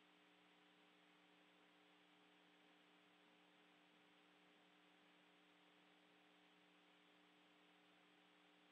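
Near silence: a faint, steady electrical hum of a few tones under light hiss.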